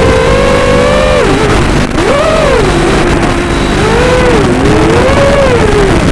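FPV quadcopter's brushless motors whining, the pitch sliding up and down with the throttle: a drop about a second in, a sharp rise near two seconds, a low stretch, then two more rises and falls. Several motors run at slightly different speeds, giving close paired tones over a rough hiss.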